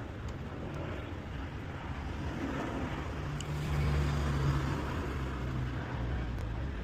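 A motor vehicle engine running nearby, a low steady hum that grows louder about three seconds in and eases off after five; a few light clicks sound over it.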